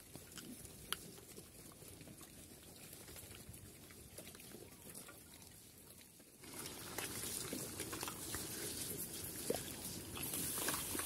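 Chrouk Kandorl piglets rooting and moving about in dry dirt, with faint pig sounds. About six seconds in, the sound steps up louder and noisier.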